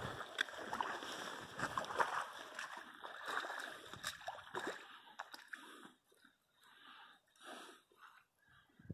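Faint splashing and sloshing of shallow river water, with scattered small knocks, dying away to a few soft, separate puffs over the last few seconds.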